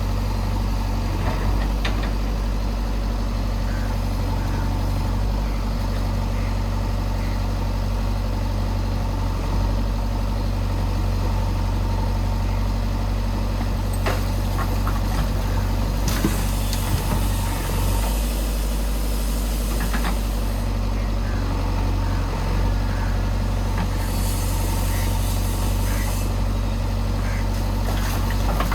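JCB backhoe loader's diesel engine running steadily, with several stretches of hiss coming and going over it.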